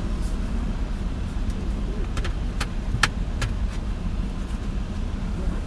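Van engine idling steadily, with four or five sharp clicks between about two and three and a half seconds in, the loudest near three seconds.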